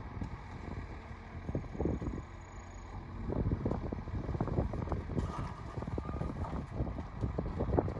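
Heavy diesel earthmoving machinery working: a low engine rumble with scattered clanks and knocks.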